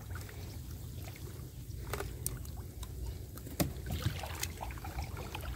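Lake water sloshing and lapping around a person wading waist-deep, with a few short sharp splashes.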